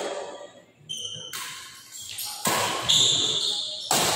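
Badminton rally: rackets striking the shuttlecock, with sharp hits about a second in and near the end. A high squeak around the middle, typical of shoes squeaking on the court floor.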